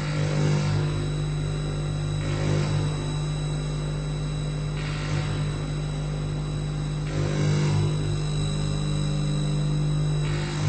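A steady low hum, with a swell of hiss about every two and a half seconds.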